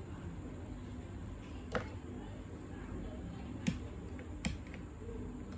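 Three short, sharp clicks of small plastic and wooden model-plane parts handled by hand, spaced unevenly, over a steady low background hum.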